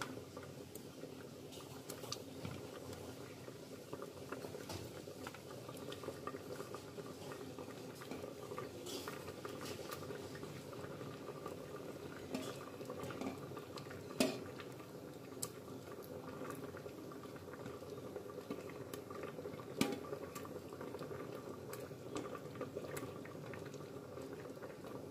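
Dal bubbling at a boil in an open pressure cooker as pieces of dhokli dough are dropped in, with a couple of sharp clinks of metal about 14 and 20 seconds in.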